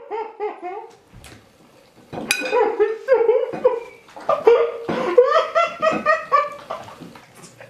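Hearty laughter in repeated short bursts, with a sharp clink or two, likely a fork against the plate.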